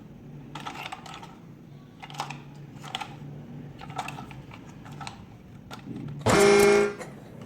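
Light plastic clicks and rattles of toys being handled, then one short horn-like honk near the end.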